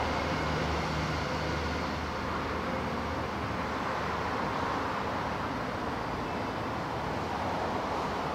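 Steady rumbling noise, like a traffic or train ambience, with a low hum underneath that fades out about two seconds in.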